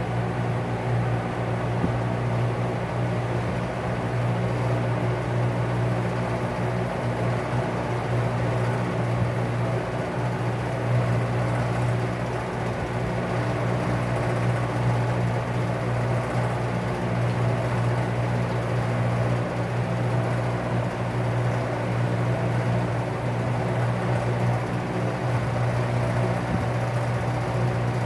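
Vintage Lakewood P-58 box fan motor running steadily, spinning a 20-inch LAU propeller: a constant low motor hum under the rush of moving air.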